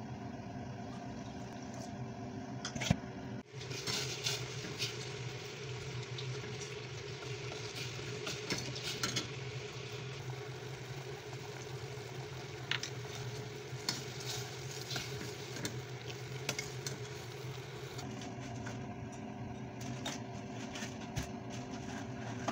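Sugar syrup bubbling in a steel pan while a metal spoon stirs it, with a steady hiss and scattered clinks of the spoon against the pan. The hissing starts a few seconds in and stops about three quarters of the way through, over a low steady hum.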